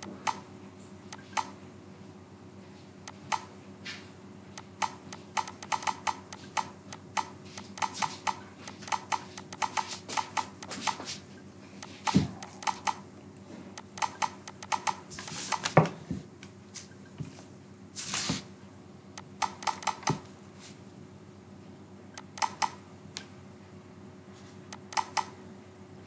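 Clicks and keystrokes of a computer mouse and keyboard, scattered singly and in quick runs of several a second, over a faint steady hum.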